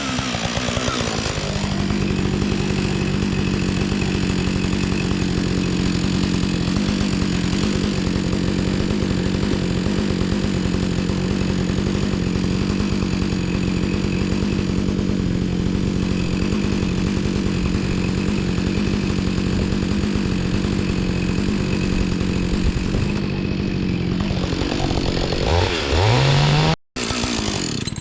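Chainsaw running at high speed for a long steady stretch, cutting through a log. Near the end it revs up and then cuts off abruptly.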